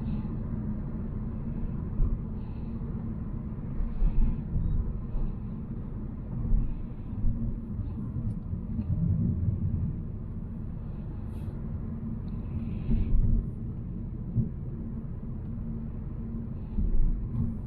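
Volvo C70 driving, a steady low rumble of engine and road noise heard from inside the car, with a few brief louder bumps.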